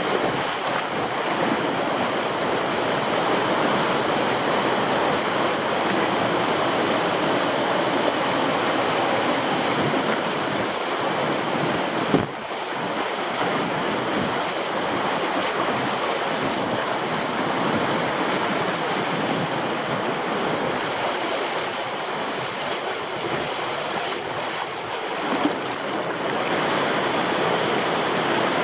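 River rapids: whitewater rushing and churning over rocks in a steady wash of noise. A single brief click comes near the middle.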